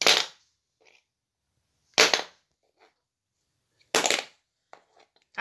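Plastic glue stick being flipped and landing on a laminate floor: three sharp knocks about two seconds apart, with a few faint small taps between them.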